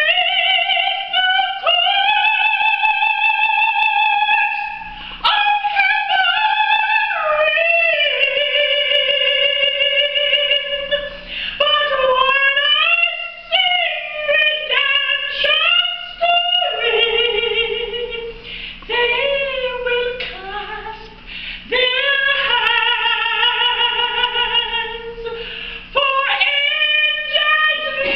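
A woman's soprano voice singing a hymn, holding long high notes with a wide vibrato in phrases broken by short breaths.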